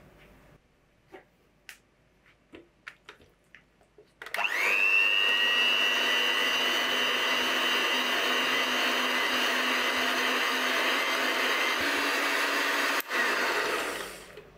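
Electric hand mixer beating butter, sugar, egg yolk and molasses in a glass bowl. After a few light taps, the motor starts about four seconds in with a rising whine that settles into a steady run, cuts out for a moment near the end, runs briefly again and stops.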